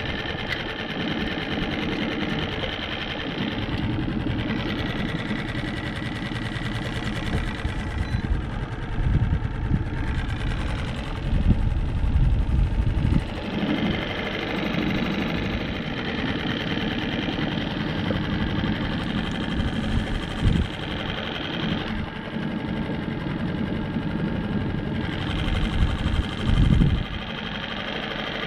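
Small motor running steadily with a thin whine, swelling louder a few times with low rumbling thumps.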